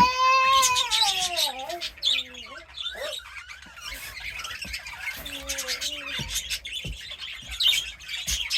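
Caged birds chirping and squawking, with a long wordless vocal call at the start that slides down in pitch and a shorter, lower one about five seconds in.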